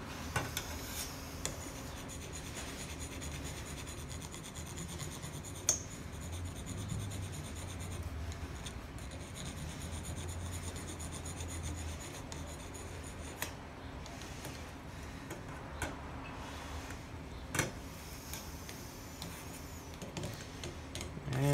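Steady rasping rub as rust is worked off an old padlock that has been soaking in Krud Kutter rust remover, with a few sharp clicks of metal along the way.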